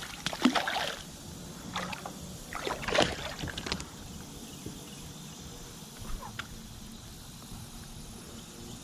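Water splashing and knocking around a kayak as a small largemouth bass is fought to the boat. Irregular bursts come over the first four seconds, the loudest about three seconds in, and one short sound near six seconds.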